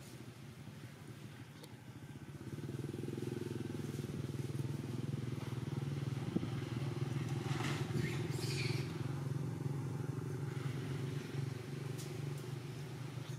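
A motor engine running steadily at an even pitch, growing louder about two and a half seconds in and holding there.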